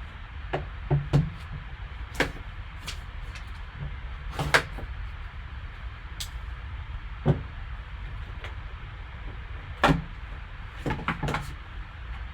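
Hands handling and opening a trading card box: scattered light knocks and taps of cardboard and packaging over a low steady hum.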